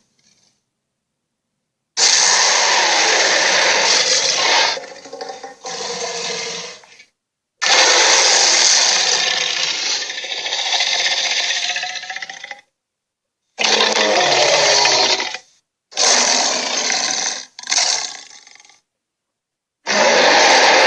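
Gorilla calls: a series of harsh, noisy vocalizations, each a few seconds long, cut off abruptly and separated by short silences.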